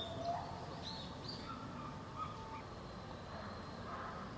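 Bolivian squirrel monkeys calling: scattered short, high chirps and peeps, with a few thin held whistles, over a low background hum.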